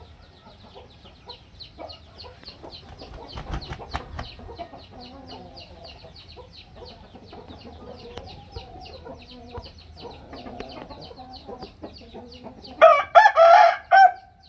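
A rooster crows loudly near the end: one crow broken into a few pieces. Before it there is soft clucking and a rapid, even high chirping, about four chirps a second.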